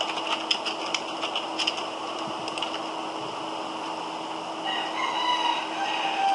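Computer keyboard keys clicking as a word is typed, over a faint steady hum. About five seconds in, a drawn-out tonal call with a few slightly falling tones sounds in the background.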